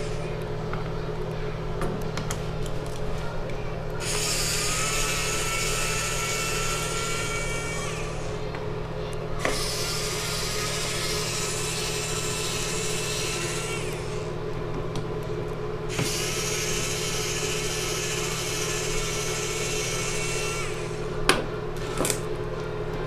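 A small electric screwdriver running in three bursts of about four seconds each, with pauses between them, backing out the small screws of a laptop's bottom panel. A few sharp clicks come near the end.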